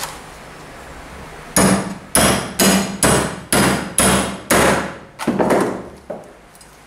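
A hammer striking a steel socket driven through a moped's rear wheel hub: about nine blows, roughly two a second, starting a couple of seconds in, each ringing briefly. The blows knock the socket out, and the wheel bearing comes out with it.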